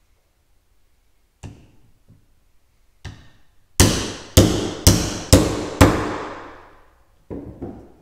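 Five sharp hammer blows about half a second apart, each with a short ring, driving a seal driver down to seat a new seal in a hydraulic cylinder gland. A couple of lighter knocks come first, as the driver is set in place.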